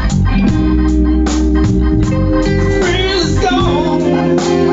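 A band playing a blues: sustained organ chords from a stage keyboard over electric guitar and a steady beat. A wavering lead line rises about three seconds in.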